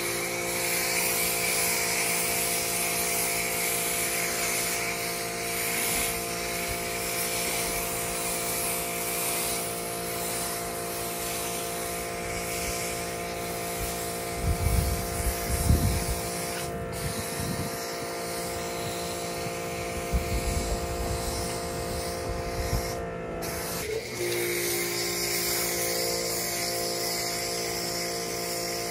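Electric pressure washer running steadily, its motor holding a steady hum under the hiss of foam spraying from a foam gun. A few low rumbles come midway, and the hum's pitch shifts briefly about 24 seconds in.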